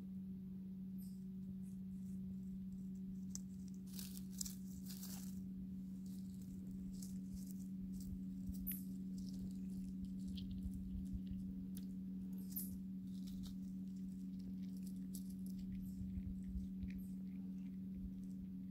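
Faint rustling in dry pine needles, then scattered soft clicks of a chipmunk cracking sunflower seeds held in a hand, over a steady low hum.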